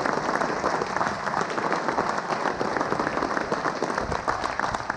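Audience applauding, many people clapping steadily, thinning a little near the end.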